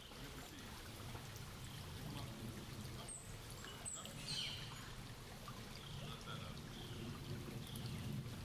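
Shallow creek trickling and babbling over a rocky bed, a steady running-water sound, with a few short bird calls in the middle.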